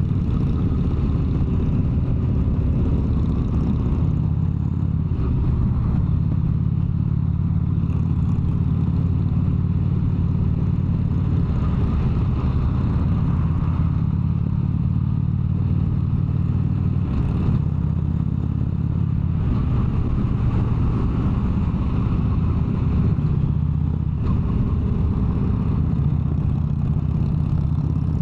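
Harley-Davidson V-twin motorcycle cruising at a steady highway speed, its engine and exhaust holding an even, low drone throughout.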